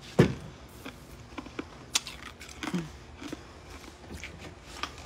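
A door with a lever handle being opened, with scattered knocks and clicks: a loud knock just after the start and a few sharp clicks later.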